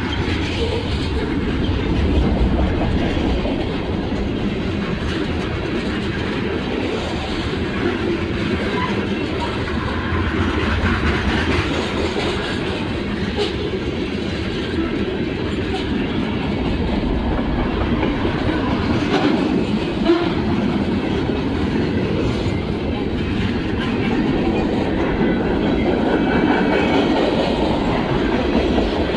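CSX freight train's cars rolling steadily past on the track.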